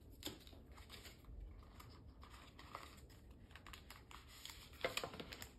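Faint clicks, taps and scuffs of small cardboard accessory boxes being handled and slid apart, with a louder rustle about five seconds in.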